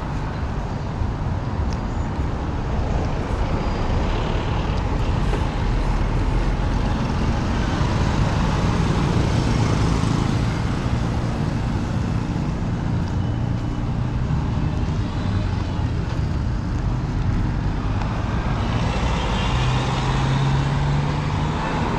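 City street traffic: the engines of passing motor vehicles running, with a continuous road noise. A nearby engine hums louder for a couple of seconds near the end.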